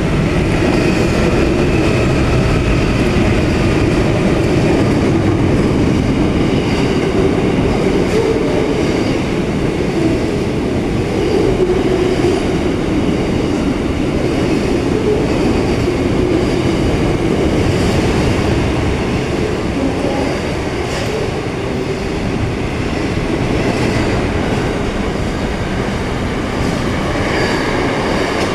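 A long diesel freight train passing close by: the last of its NR class diesel-electric locomotives, then a long string of steel and container wagons rolling past, with steady loud rail noise and wheels clicking over the rail joints.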